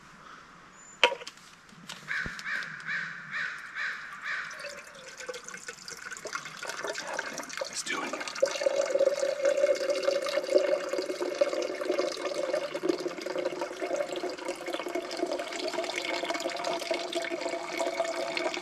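Water running from the spout of a hanging Sea to Summit water bag into a container, building about eight seconds in to a steady, ringing pour. A sharp click about a second in, and a crow caws several times about two seconds in.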